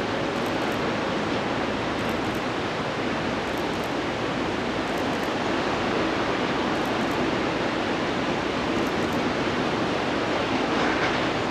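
Steady rushing noise of a fast mountain river.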